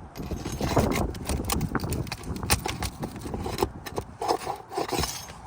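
Nails being pried out of an asphalt shingle: a run of sharp knocks and scraping of a metal tool against the shingles and nail heads, with a few short squeaks near the end.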